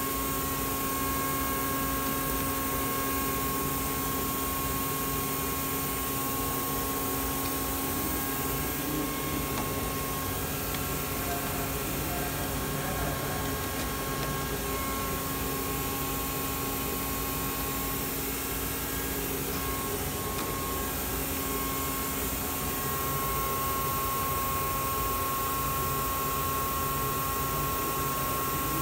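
Makino KE55 CNC vertical mill powered up and standing idle with no cutting: a steady hum with a held high whine and a lower drone over an even hiss.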